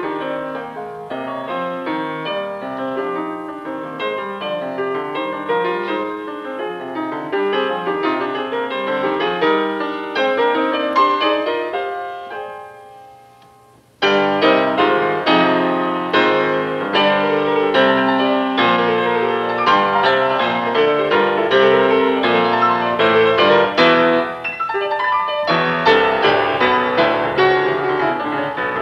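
Solo piano playing a busy passage of many notes at once. It fades away about twelve seconds in, goes nearly silent for a moment, then comes back in suddenly and loud with dense chords and fast notes.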